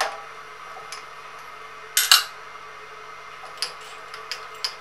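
Steel drill bit and drill chuck being handled during a bit change: metal clinks. There is a clink at the start, a sharp double clatter about two seconds in that is the loudest sound, and a run of light ticks near the end, over a faint steady hum.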